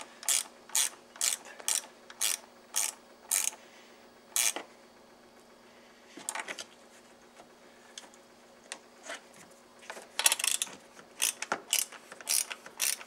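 Socket ratchet clicking in short strokes as a 12V battery terminal clamp is tightened down. A run of clicks, about two or three a second, a quiet spell in the middle, then more clicking near the end.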